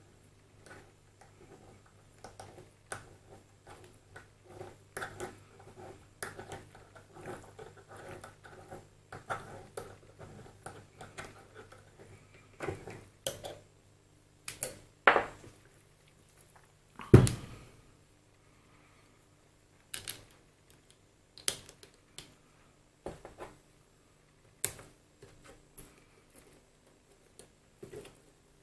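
Small metal lathe parts and hand tools being handled and set down on a workbench while reassembling a mini lathe's topslide: irregular clinks and taps, with one heavier knock about 17 seconds in.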